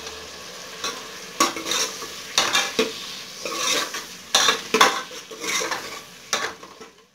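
Steel ladle stirring and scraping potato wedges around an aluminium pressure cooker, over the steady sizzle of hot oil frying them with onions and masala. The scrapes and clanks come in irregular strokes, several a second, and the sound drops away just before the end.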